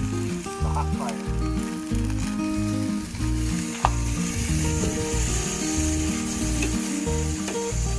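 Pork spare ribs sizzling on a hot charcoal grill as they are laid on the grate with tongs. The sizzle grows louder about five seconds in, with one sharp click a little before. Background music plays underneath.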